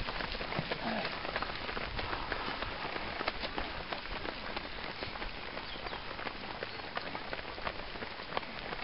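Runners' footsteps slapping on a wet tarmac road, heard as irregular sharp taps over a steady hiss of outdoor noise.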